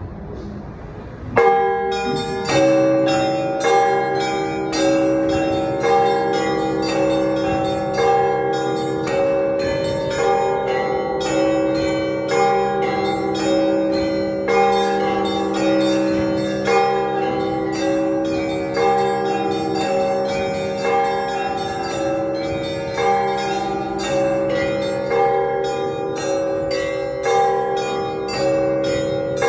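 Orthodox church bells ringing a peal (zvon). Several bells of different pitch are struck in a fast repeating rhythm over a steady pulsing chime, beginning with a loud stroke about a second and a half in.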